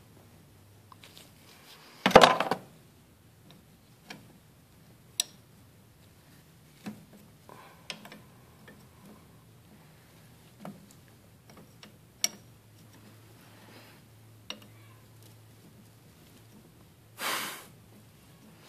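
Hand tools clinking and tapping against metal fittings in a car's engine bay while a power steering line is being loosened: scattered light clicks, one loud clank about two seconds in, and a short scraping rustle near the end.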